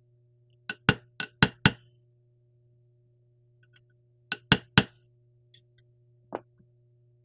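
Hammer striking a brass punch to drift a rifle's rear sight sideways in its dovetail: a quick run of five sharp metallic taps, then three more a few seconds later, and one lighter tap near the end.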